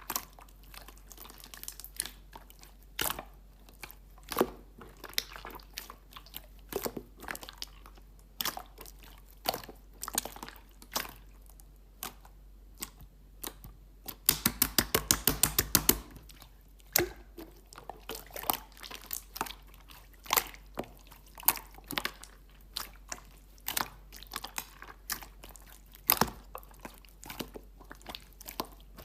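Clear slime being squished and pressed by hand, giving scattered sticky clicks and pops. About halfway through comes a quick run of about a dozen loud pops, roughly eight a second, lasting under two seconds.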